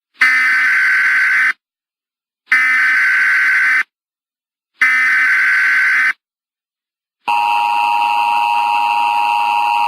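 Emergency Alert System signals: the SAME header's digital data sent three times as harsh buzzing bursts of about a second and a half each, a second apart, then about seven seconds in the steady two-tone EAS attention signal begins.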